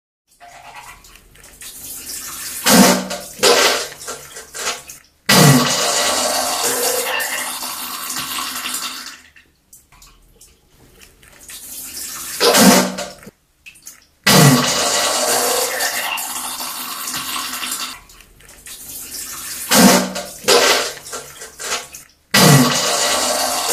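A toilet flushing over and over, about three times. Each cycle has a couple of sharp knocks followed by a loud rush of water lasting a few seconds that then fades.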